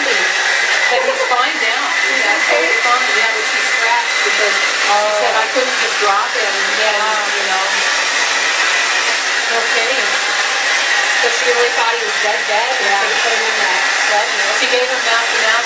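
A hair dryer running steadily, a constant rushing noise with a high whine, with muffled voices talking beneath it.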